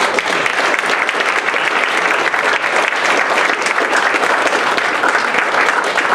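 A roomful of people giving a standing ovation: steady, loud applause throughout.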